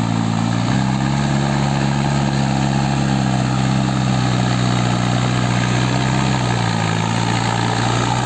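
Mahindra Arjun 555 DI tractor's diesel engine running steadily under load while it pulls a rotavator through flooded paddy: a loud, even drone whose note shifts slightly about a second in and again near the end.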